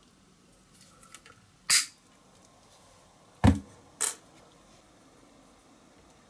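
Hand-tool handling on small metal fittings: a few faint ticks, then a sharp metallic click, a heavier knock about two seconds later, and another click half a second after that.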